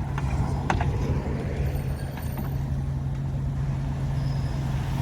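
Heavy diesel engine of construction machinery running steadily at an even low pitch, with a couple of short sharp clicks or clanks in the first second.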